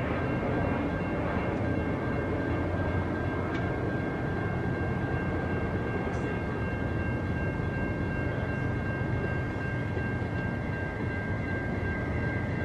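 Steady low rumble of a CSX intermodal freight train, with a thin, steady high-pitched whine over it.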